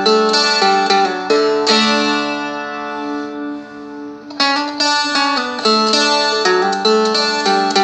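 Seagull Merlin strumstick strummed in chords over its ringing drone strings, with a chord change every half second to a second. About two and a half seconds in, one chord is left to ring and fade for nearly two seconds before the strumming starts again.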